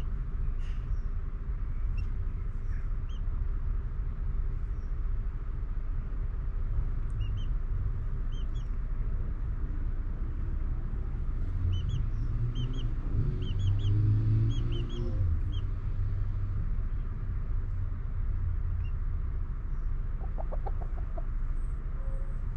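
Outdoor ambience around a flock of chickens: a steady low rumble, with short high bird chirps in scattered runs, thickest in the middle. A low drone swells about halfway through and fades again, and a brief lower call comes near the end.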